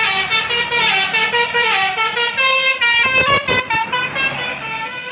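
Basuri telolet bus horn playing a fast melody of short notes that step up and down in pitch.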